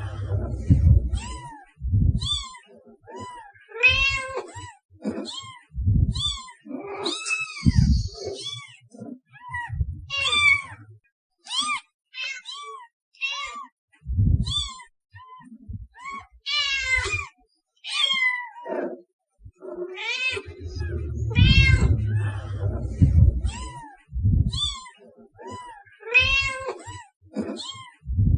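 Cat meowing over and over: short meows that rise and fall in pitch, coming about once a second with a few brief gaps, mixed with low bumps.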